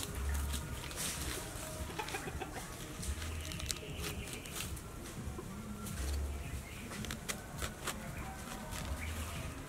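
A knife cutting into a raw purple cabbage, its blade cracking through the crisp leaves in many short snaps, while chickens cluck in the background.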